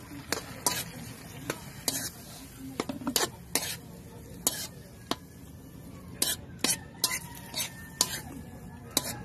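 Metal spoon scraping and clinking against an aluminium wok in irregular strokes while stirring food in the pan, with sizzling underneath.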